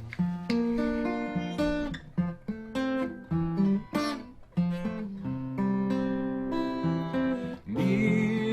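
Acoustic guitar strummed in an instrumental passage of chords. A singing voice comes in near the end.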